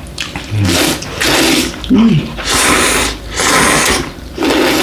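People slurping bibim ramen noodles, about four loud drawn-in slurps in a row, each under a second long.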